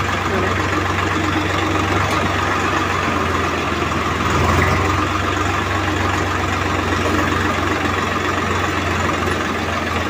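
Swaraj 744 FE tractor's three-cylinder diesel engine running steadily at low speed as the tractor drives slowly, heard close up from the driver's seat.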